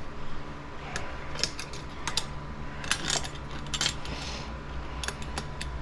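Metal bead breaker tool being handled and set against a motorcycle tire: scattered metallic clicks and clinks in small clusters, over a faint steady hum.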